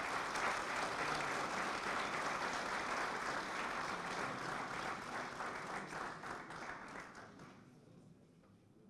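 Audience applauding, steady at first and dying away over the last two seconds.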